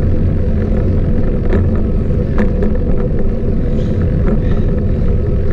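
Steady low rumble of wind and tyre noise from a road bike rolling along asphalt, picked up on the camera's microphone.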